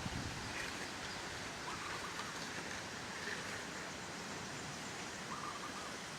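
Steady outdoor ambience, an even hiss, with a faint bird calling twice: a short run of quick notes about two seconds in and again near the end.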